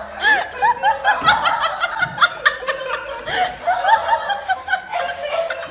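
People laughing: a run of quick, repeated chuckles and snickers that goes on through the whole stretch.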